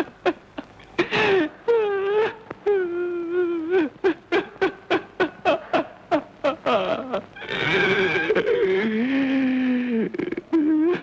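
A voice making rapid short pitched pulses, about three or four a second, broken by longer drawn-out wavering cries, the longest near the end.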